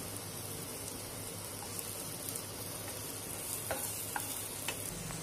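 Chopped onion and garlic sizzling steadily in butter in a non-stick pan, stirred with a wooden spatula that gives a few soft scrapes about four seconds in.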